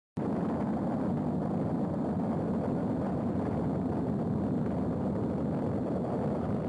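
Saturn V first stage's five F-1 rocket engines at liftoff: a steady, deep rumble of rocket exhaust that starts abruptly and holds level without change.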